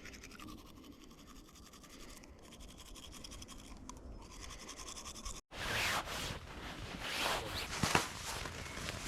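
Faint ambient background, then after a sudden cut about five and a half seconds in, scraping and rustling with a few clicks as camp gear is handled and packed up.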